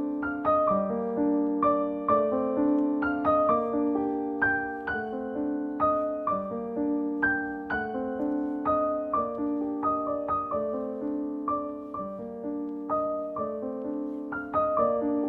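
Background music: soft piano playing a slow, gentle melody of separate notes that ring and fade.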